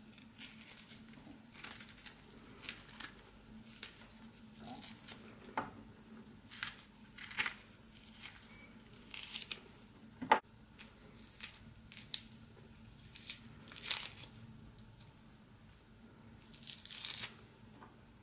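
Orange peel being cut with a small knife and torn off by hand: irregular short ripping and rasping sounds, with one sharp click about ten seconds in.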